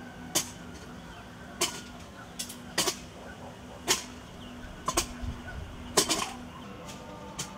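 A hand tool chopping or striking at wood: sharp, crisp blows about once a second, some coming in quick doubles, the loudest about six seconds in.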